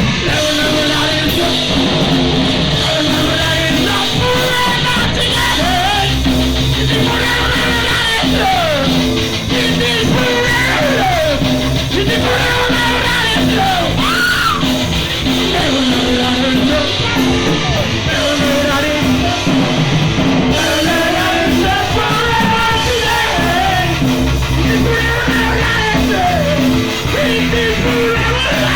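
Punk rock band playing live: a full band with a singer's vocals sung and yelled over it.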